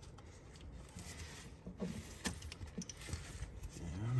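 Faint scattered clicks, knocks and rubbing of a throttle body and intake tube being handled and rotated into place by gloved hands, with a short low rising sound near the end.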